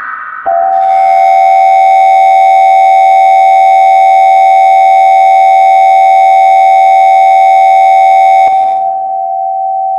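Emergency Alert System attention tone: a loud, steady electronic alert tone that starts about half a second in, holds for about eight seconds, then drops to a much fainter tone near the end, ahead of a National Weather Service warning.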